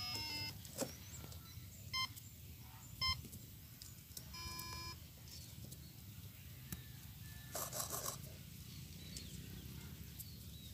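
Startup beeps of an RC plane's 30 A ESC and 2212 1000 kV brushless motor as the 3S LiPo is connected: a quick run of tones at the start, two short beeps about a second apart, then a longer beep about four seconds in, the signal that the speed controller is powered and ready to arm. A short scratchy sound follows about eight seconds in.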